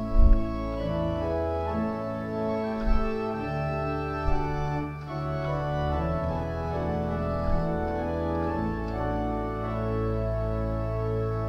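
Pipe organ playing sustained chords on its 8 and 4 foot foundation stops, a mixture of principals and flutes. The chords change about once a second or so.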